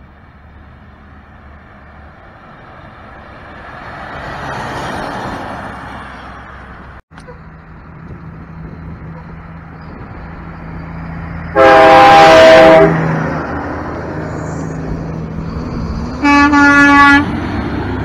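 Semi-truck air horn blown twice, a blast of about a second and a shorter one near the end, over the steady running of truck engines passing on the road.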